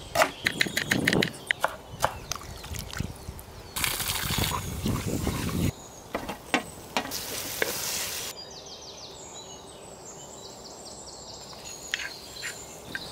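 A knife chopping onion on a wooden board in quick, even strokes, then loud sizzling in two stretches as sliced onion goes into hot oil in a clay pot, after which it quietens.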